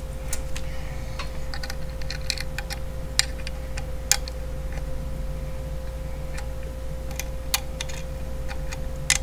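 Irregular small clicks and ticks of metal hardware as a bolt, washer and nut are fitted by hand into the mounting bracket of an aluminium LED light housing.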